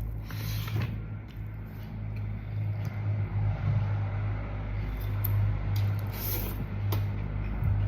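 A person eating chicken and rice, with chewing and short mouth and utensil clicks every second or so, over a steady low hum.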